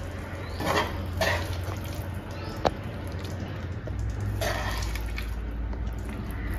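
Spoon scooping thick chicken curry out of a nonstick pan and dropping it into a bowl: a few short wet plops and scrapes, with one sharp clink a little before the middle.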